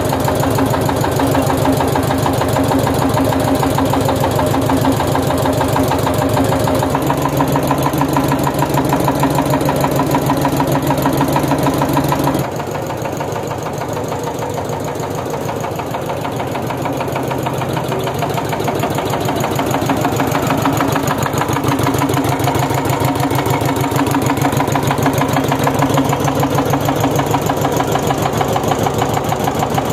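Petter stationary diesel engine running steadily at constant speed with an even, rapid beat, belt-driving a flour mill (atta chakki). The sound turns fainter from about twelve seconds in, then grows louder again near the end.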